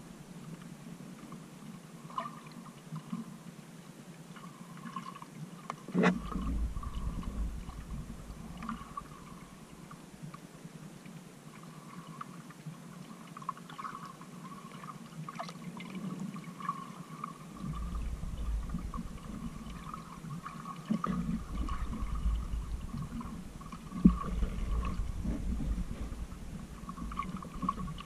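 Underwater sound picked up by a GoPro Hero 5 Black in shallow sea water: muffled water sloshing, with surges of low rumble from about six seconds in and again in the second half, faint crackling, and a few sharp clicks.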